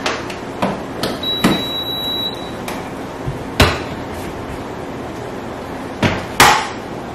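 Kitchen clatter as a rice cooker is loaded and closed: a string of sharp knocks, the loudest about three and a half and six and a half seconds in. A short high beep sounds about a second in.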